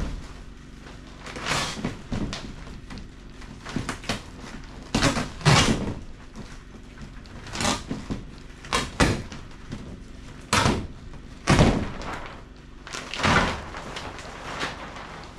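Clear PVC greenhouse roof panels being handled overhead against a wooden frame: about a dozen irregular flexing rattles and knocks, some short and sharp, some lasting about half a second.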